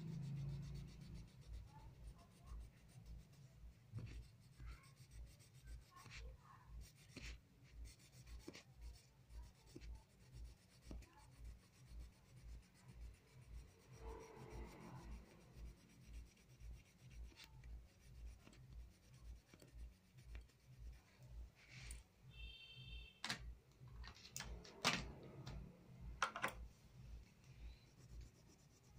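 Wax crayon rubbing on paper as a drawing is coloured in, in faint, even back-and-forth strokes. A few sharper clicks come near the end.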